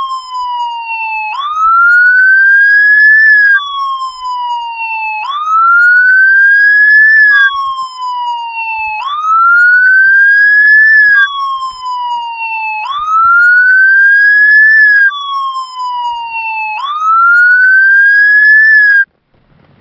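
Emergency vehicle siren, loud and clean like a dubbed-in sound effect. Each cycle the pitch slides down, then sweeps back up and climbs slowly, repeating about every four seconds. It cuts off sharply after the fifth rise.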